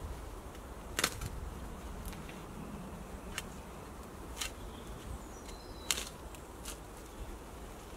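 Sharp snaps and cracks of dry twigs and brushwood under boots and hands, about six scattered roughly a second apart, over a low, steady woodland background.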